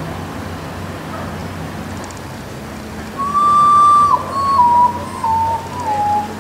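Urutau (common potoo) singing: a long whistled note about halfway in, then a run of shorter mournful notes, each a step lower than the last, over a steady hiss.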